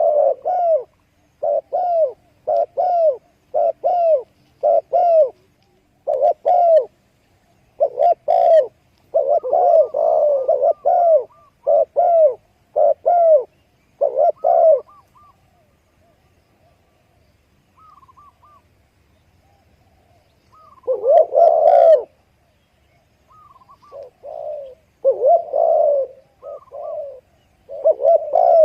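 Doves cooing: short, arched coos repeated about once a second, with a lull of several seconds in the middle before the cooing picks up again.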